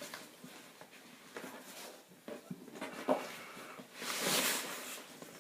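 Rustling and crinkling of packing peanuts and a cardboard shipping box as things are dug out by hand, with a sharp click about three seconds in and a louder rustle about four seconds in.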